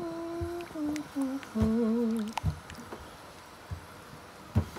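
A person humming a short tune: a rising slide into a few held notes, the last one wavering. After it, a few soft knocks, one sharper near the end.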